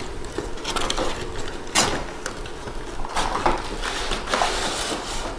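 Cardboard toy box being opened and a wooden toy slid out of it: scattered rustles, scrapes and light knocks, with one sharp knock about two seconds in and a longer stretch of sliding and rustling around the middle.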